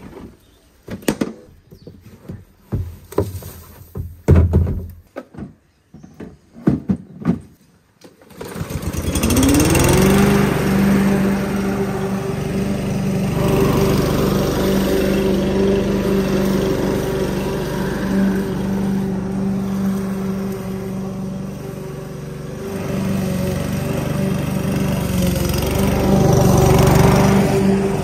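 Petrol push lawn mower: a string of short clunks and rattles, then the engine catches about nine seconds in, its pitch rising as it speeds up, and settles into a steady run.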